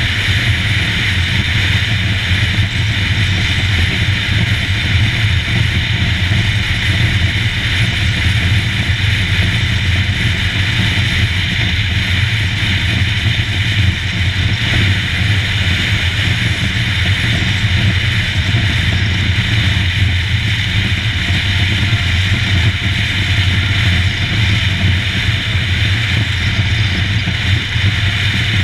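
Royal Enfield Himalayan's single-cylinder engine running steadily at cruising speed, heard from a handlebar-mounted action camera, with wind and road noise over it.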